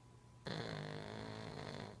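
Pug snoring: one loud, rasping snore lasting about a second and a half, starting about half a second in.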